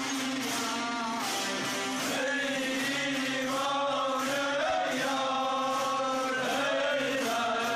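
Several tanburs, Kurdish long-necked lutes, strummed together over a steady drone, with men's voices chanting a Yarsani devotional hymn in long, gliding held notes that come in about a second in.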